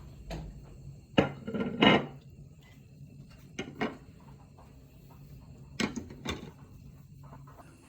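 A handful of separate knocks and clatters of hard objects, the loudest a quick run of clatters about one to two seconds in, then two pairs of single knocks later.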